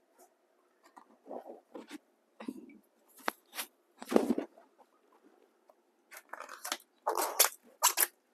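Outer bracts being peeled by hand off a banana blossom: irregular short snaps and tearing sounds, the loudest about four seconds in, with a quick run of them near the end.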